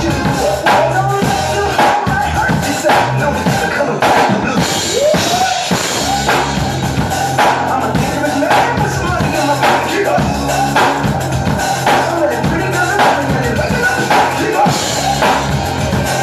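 Drum kit played in a steady groove, with bass drum, snare and cymbals, along with music that carries a sustained bass line and melody.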